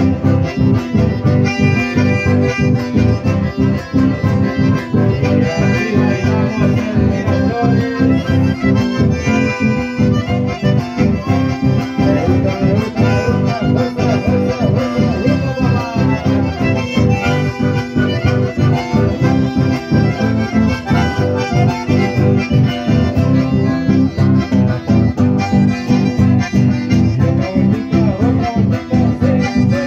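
Live instrumental chamamé on two accordions with acoustic guitar, playing a steady dance rhythm.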